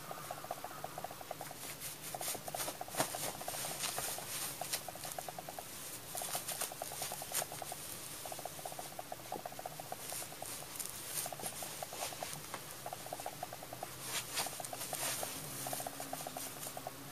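Thin plastic bag crinkling and rustling in bursts as a cat pounces on it, burrows into it and rolls in it. A rapid pulsing sound comes and goes in bursts of about a second underneath.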